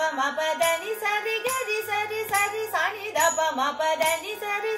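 Female voice singing a Carnatic higher-octave varisai exercise in swara syllables, the notes bending in gliding ornaments, over a steady drone. Regular short taps about once a second keep the beat.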